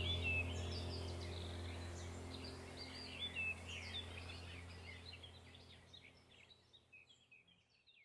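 Small birds chirping and twittering over a low, steady hum, the whole field ambience fading out over the last few seconds.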